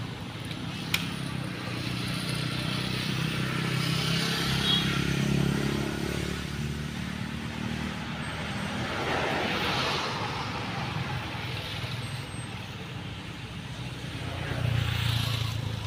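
Road vehicles passing: a low engine hum that swells and fades three times, with a single sharp click about a second in.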